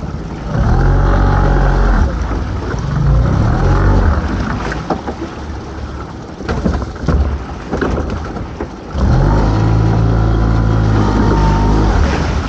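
Lobster-pot hauler's motor running in two spells, about half a second in and again from about nine seconds, each starting with a short rising whine. Sharp knocks from the pots and gear being handled come between the spells, over steady wind and sea noise.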